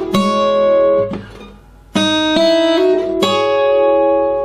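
Acoustic guitar tuned to open D with a capo on the 2nd fret, its top strings fingerpicked high up the neck and left to ring. There are two phrases of plucked notes: one at the start that fades out, then a second that begins about two seconds in.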